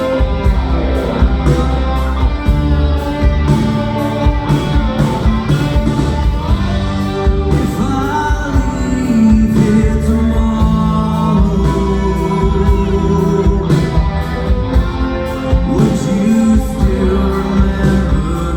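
Rock band playing a slow song: guitars and drums with cymbals keeping time, and a singer's voice over them.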